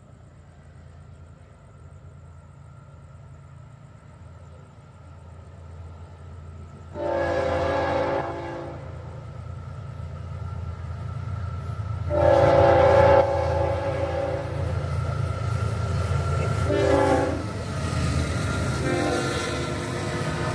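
Florida East Coast Railway freight train approaching and passing, its diesel locomotives' low rumble building steadily. The locomotive's air horn sounds the grade-crossing signal: two long blasts, a short one, and a final long one starting near the end.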